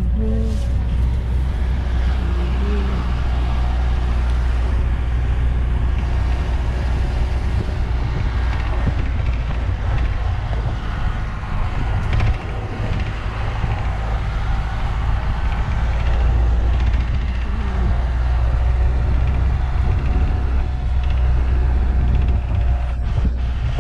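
A motor vehicle driving, with a steady low rumble of engine and road noise.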